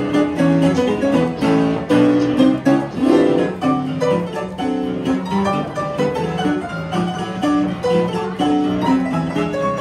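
Upright piano played live, a lively tune of quick, bright notes.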